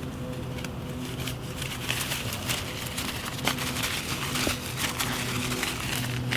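Rustling and small clicks of a Zpacks Duplex tent's door flap and cord being handled and cinched tight, busiest from about two seconds in, over a steady low hum.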